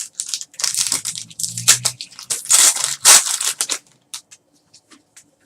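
A foil trading-card pack wrapper is torn open and crinkled, in a run of rustling and tearing bursts lasting nearly four seconds. A few light clicks follow as the cards are handled.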